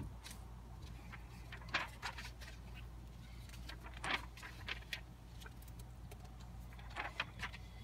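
A few short, faint rustles of paper sheets being leafed through, spread a second or two apart, over a low steady hum.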